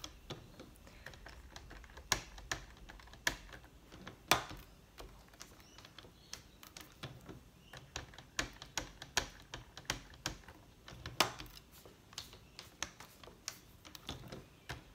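Plastic ink pad tapped again and again onto a stamp in a Stamparatus stamping platform: a long run of irregular light clicks and taps, with a few louder clacks. The light Mango Melody ink is being dabbed on repeatedly to build up colour.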